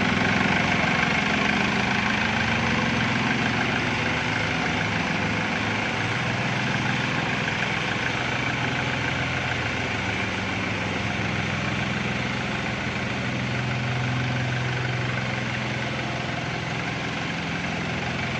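Mini crawler excavator's engine running steadily.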